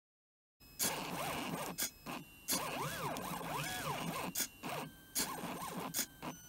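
NEMA-17 stepper motors of a 3D-printed Arduino pen plotter driving the belt-drawn pen carriage while it draws, a buzzing whine whose pitch rises and falls as the motors speed up and slow down on each stroke. Short pauses and sharp clicks fall between the moves. It starts after about half a second of silence.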